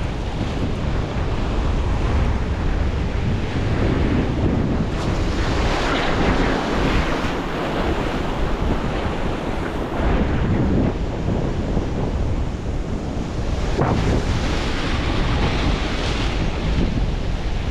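Ocean surf breaking and washing over the rocks of a jetty, swelling and ebbing every few seconds, with wind buffeting the microphone.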